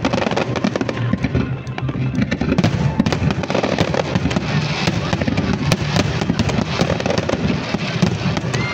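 Fireworks display: a dense, continuous run of sharp crackles and bursts, many a second, with show music playing underneath.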